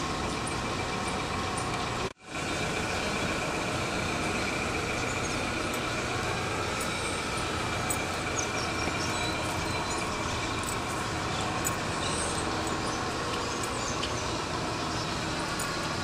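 Steady outdoor background din, most like distant road traffic, with a few faint high chirps or ticks over it. It cuts out completely for a moment about two seconds in.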